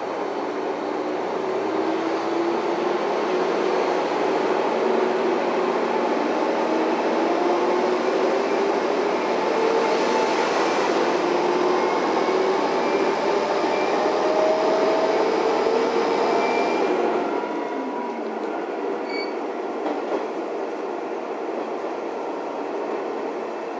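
Kanto Railway Kiha 5000 series diesel railcar pulling away and gathering speed: the engine note climbs in two long rising sweeps over the running noise. About seventeen seconds in the engine note drops away, leaving the wheels running on the rails with a few clicks at the rail joints.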